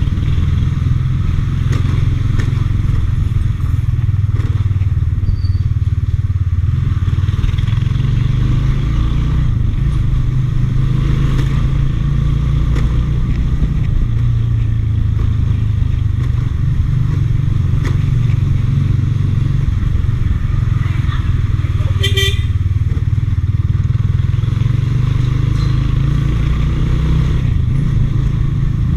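Motorbike riding in traffic, recorded on a GoPro: a loud, steady low rumble of engine and road noise. A brief pitched beep sounds about three-quarters of the way through.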